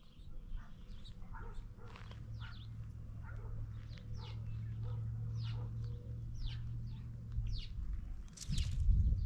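Small songbirds chirping, short high chirps that sweep downward, about two a second, over a low steady rumble that grows louder near the end.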